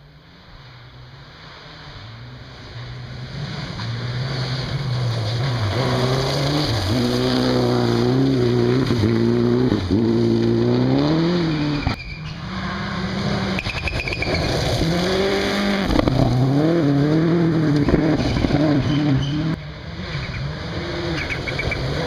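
A rally car's engine approaching hard on a gravel stage, getting louder over the first few seconds. Its revs climb and drop again and again with gear changes and lifts, with sudden drops about twelve seconds in and again near the end.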